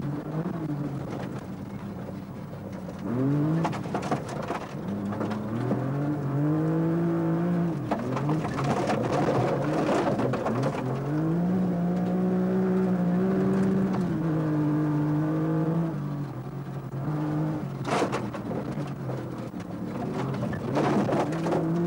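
Rally car engine heard from inside the cabin at speed, revving up through the gears and dropping back for corners, its pitch climbing, holding and falling several times. A few sharp knocks stand out, the clearest about eight and eighteen seconds in.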